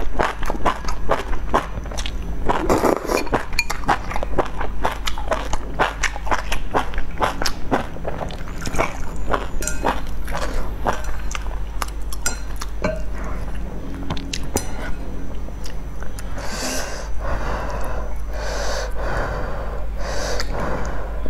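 Close-miked slurping and chewing of noodles in spicy broth: a dense run of wet clicks and smacks, then several longer slurps in the last few seconds.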